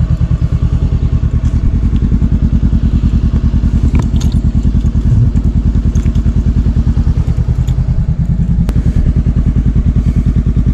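Honda motorcycle engine running at idle, a steady even beat, with a couple of light clicks.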